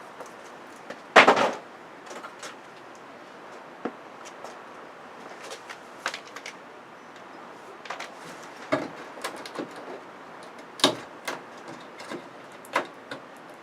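Scattered clicks and knocks of an LED television's internal cables and connectors being unplugged and handled during teardown, the loudest a sharp knock about a second in.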